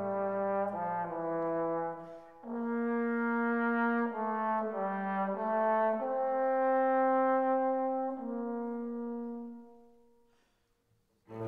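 Music: a slow brass melody of long held notes, with a short break about two seconds in. It fades out near the end, and a new, louder passage starts just as it ends.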